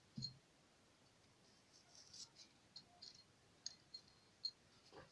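Near silence with faint scattered clicks and crackles of garlic cloves being broken apart by hand, after one soft knock just after the start.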